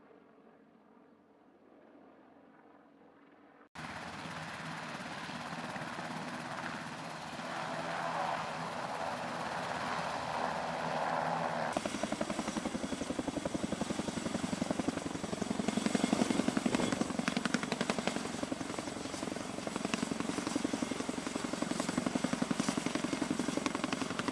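CH-47 Chinook tandem-rotor helicopter hovering overhead with a slung load, its rotors beating in a fast, even pulse. The first few seconds are faint, then the helicopter noise cuts in loud.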